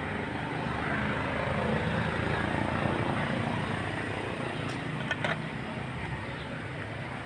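A motor vehicle engine running, swelling a little and easing off over a few seconds, with a few light clicks about five seconds in.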